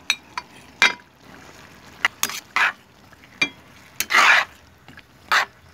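Spatula scraping and clacking against a frying pan while stir-frying sliced okra, bottle gourd and bell pepper, in irregular strokes with one longer scrape about four seconds in. A low frying sizzle runs underneath.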